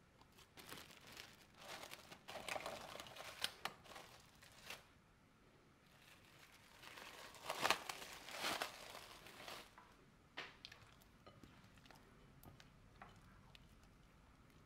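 Crinkling and rustling of something being handled, in two spells of several seconds each, followed by a sharp click and a few light ticks.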